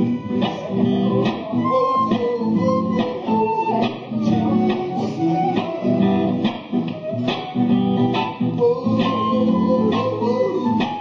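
Live band music at a soundcheck, led by guitar playing with a steady rhythm.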